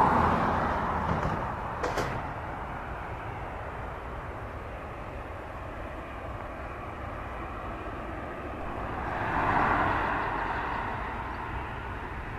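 Jet engines of an Airbus A321 idling as it taxis past and away, the engine noise fading over the first few seconds. A single sharp click comes about two seconds in, and the jet noise swells again around ten seconds in.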